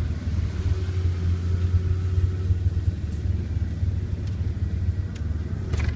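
Land Rover Discovery driving through soft sand, heard from inside the cabin: a low, steady rumble of engine and running gear, with a few short sharp knocks later on, the strongest near the end.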